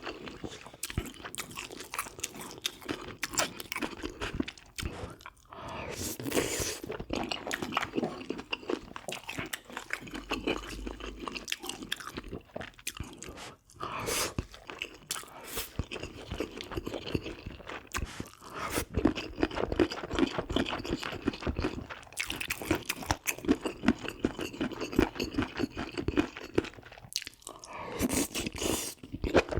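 Close-miked eating of spicy braised pork ribs with bean sprouts: wet chewing and biting with crisp crunches, a dense, irregular run of mouth noises with a brief pause partway through.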